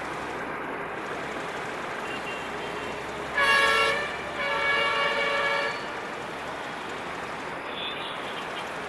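Diesel locomotive air horn sounded twice, a short blast and then a longer one, each a chord of several tones, over the steady rumble of a train at the station.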